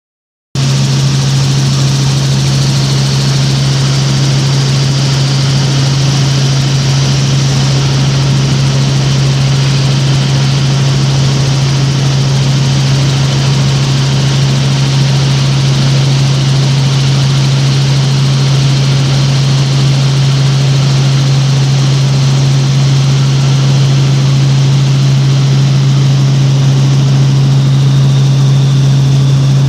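Helicopter cabin noise in flight: the engine and rotors give a loud, steady low hum under a constant hiss.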